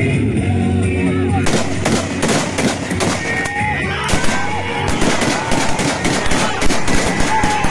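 Salute gunfire: several rifles fired into the air in quick, irregular single shots and short bursts, many overlapping, starting about a second and a half in. Music plays at first.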